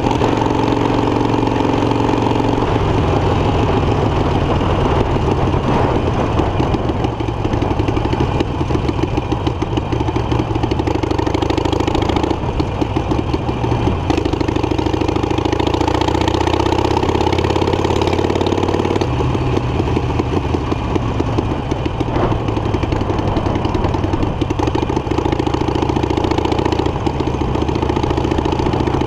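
Harley-Davidson Iron 883 Sportster's air-cooled V-twin, fitted with an aftermarket Guerrilla exhaust, running while riding at city speed. A little past the middle the revs climb steadily for several seconds as it accelerates, then drop suddenly as the throttle comes off or it shifts.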